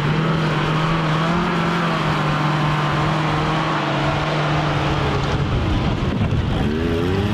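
Off-road 4x4 engine running hard at steady revs, then revving up and down near the end.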